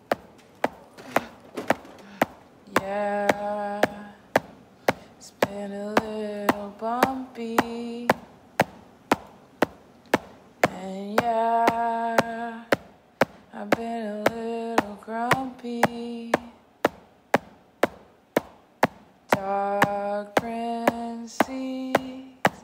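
End-credits song intro: a sparse beat of sharp clicks about two a second under held, pitched notes in phrases of two to three seconds, some sliding in pitch at their ends.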